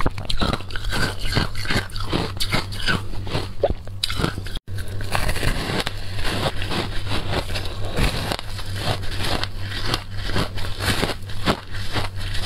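Teeth biting and crunching through a block of shaved ice coated in passion fruit pulp: a rapid, continuous run of crisp crunches, broken by a split-second gap about four and a half seconds in. A faint steady low hum runs underneath.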